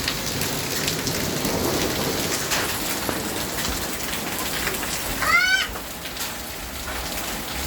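Steady rain falling and splashing, with scattered drop hits. About five seconds in, a brief high call of a few curved notes sounds over the rain.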